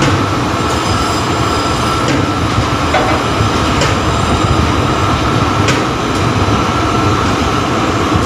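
Tower crane machinery running, heard inside the operator's cab while he works the joysticks: a loud, steady noise with a constant high whine over a low hum, and a few sharp clicks.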